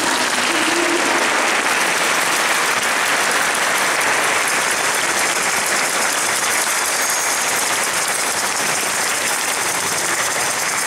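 Audience applauding: steady, sustained clapping from many people.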